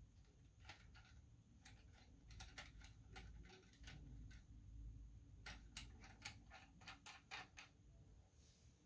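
Faint, irregular clicks and ticks from the twist-lock leg sections of a Koolehaoda monopod as they are twisted and slid shut, one cluster about two and a half seconds in and another from about five and a half to seven and a half seconds in.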